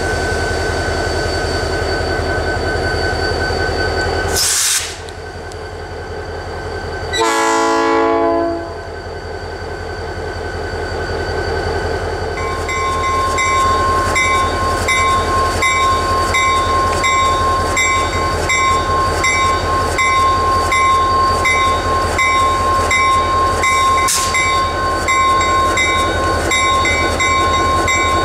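EMD GP30 diesel locomotive, with its 16-cylinder 567 engine running steadily. There is a short hiss of air about four seconds in, then a single horn blast of about a second and a half. From about twelve seconds in a bell rings steadily, about one and a half strokes a second, over a steady tone.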